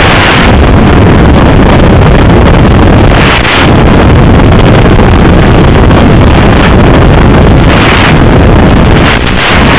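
Loud, steady rushing noise from the onboard audio of a Bixler 2 FPV plane in flight: wind over the camera microphone, carried over the analog video link.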